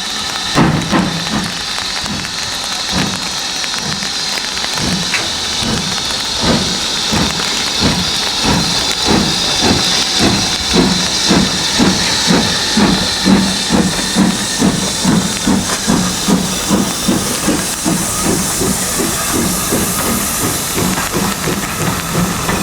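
BR Standard Class 4 2-6-4 tank steam locomotive working hard, its chuffing exhaust beats slow at first and getting steadily quicker as the train picks up speed, over a constant hiss of steam.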